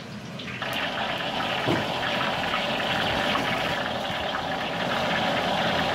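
Deep-frying oil sizzling and bubbling steadily in a wok over a gas burner, heated to about 150 degrees; the hiss starts about half a second in.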